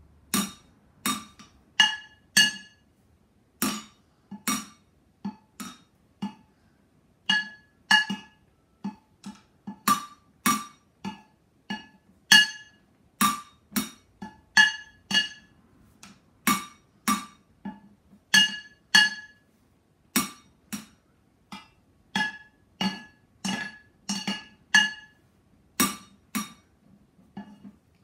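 Wooden drumsticks beating on upturned cooking pots, an uneven beat of about two hits a second. Each hit gives a dull thud and a short metallic ring.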